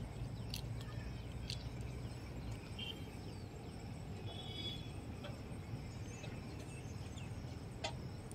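Quiet outdoor ambience: a steady low rumble with a faint background hiss, a few brief high chirps and some scattered faint clicks.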